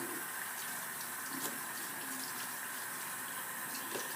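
Tap running steadily into a sink, with a few faint clicks and knocks of hands being washed under it.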